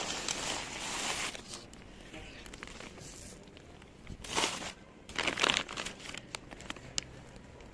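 Crinkling and rustling of packaging being handled, with two louder rustles about four and five and a half seconds in and a few sharp clicks.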